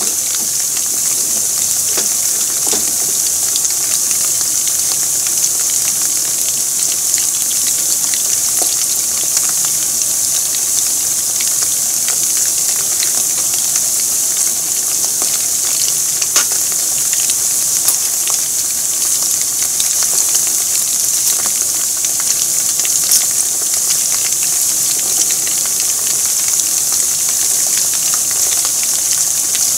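Chicken karaage deep-frying in hot oil: a steady, high sizzle with many fine crackles.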